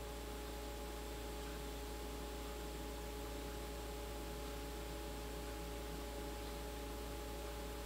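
Steady hiss and electrical hum of background noise, with a few faint constant tones and nothing else sounding.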